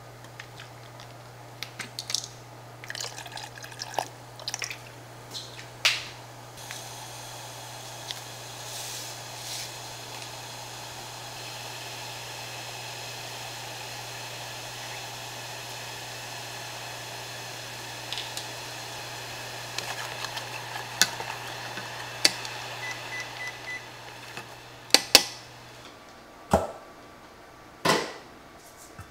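Liquid poured from a bottle into a small saucepan of water, with a few clicks of handling, then the pan of broth heating on an induction cooktop with a steady bubbling hiss over a low hum. Near the end come several sharp knocks and clatters.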